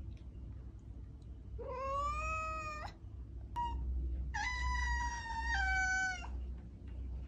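Domestic cat meowing. About two seconds in comes a drawn-out meow rising in pitch, then a brief chirp, then a longer meow that steps down in pitch partway through.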